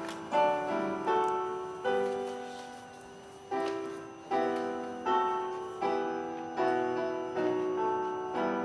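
Piano playing a slow hymn tune in full chords, each chord struck and left to fade before the next, with one longer held chord midway.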